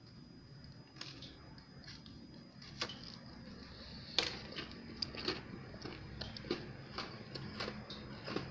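A hard chocolate-coated alfajor being bitten and chewed close to the microphone: irregular crisp crunching clicks, growing more frequent from about a second in.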